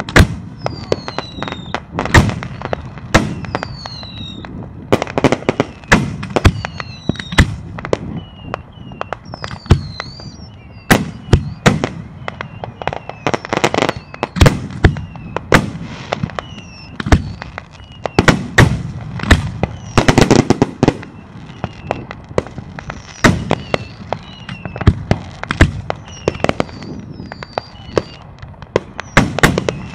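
Aerial fireworks shells bursting in quick succession, dozens of sharp booms and bangs, at times several a second, with high falling whistles between them.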